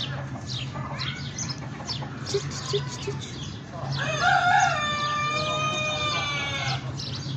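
A rooster crowing once: one long, drawn-out call that starts about four seconds in and lasts about three seconds. Small birds chirp before it.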